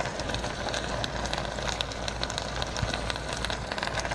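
Pot of collard greens cooking on a stovetop burner: steady sizzling and crackling with many small pops, over a steady low hum.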